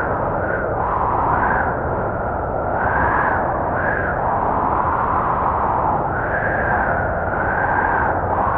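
Blizzard wind blowing steadily, with a howl that swells and fades every second or two as the gusts come and go.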